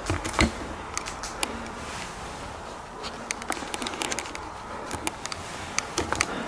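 Irregular light clicks and taps, about a dozen scattered through, over a faint steady hiss.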